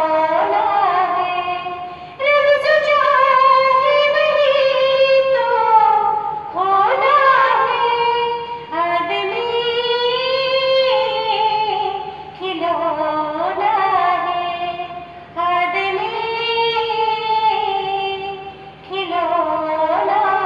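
A woman singing a Hindi song solo into a handheld microphone, in phrases of a few seconds with sliding pitches and long held notes, breaking briefly for breath between lines.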